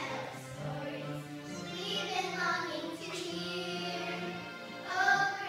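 Music with a group of children's voices singing.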